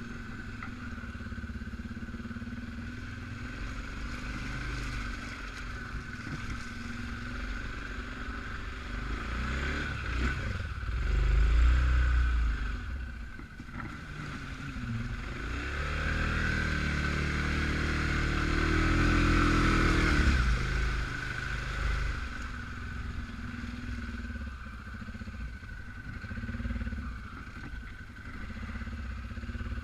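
Suzuki KingQuad 750 AXI ATV's single-cylinder engine running off-road. It surges loudly about 11 seconds in, then revs up from about 15 seconds and holds high before easing back around 21 seconds.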